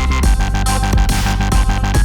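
Background electronic music with a heavy bass line and a steady, fast beat, in a dubstep style.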